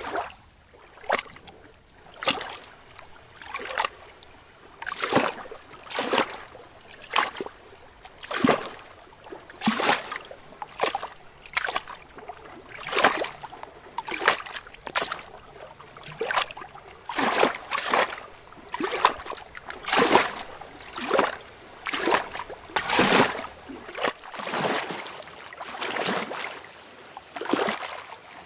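Lake water lapping and splashing in short repeated surges, about one a second.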